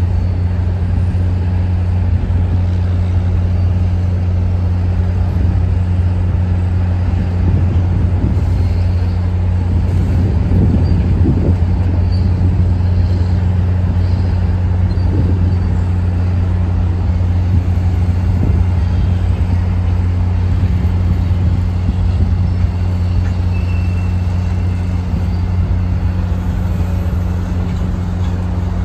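CSX diesel freight locomotives running with a steady low drone as the train rolls slowly toward and alongside.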